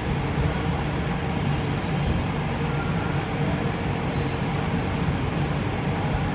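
A steady mechanical hum: an unchanging low drone with an even hiss over it.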